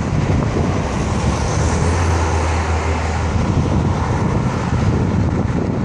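Cars passing on a city road, among them a BMW E71 X6M whose twin-turbo V8 gives a deep, steady drone for about two seconds in the middle, over steady tyre noise.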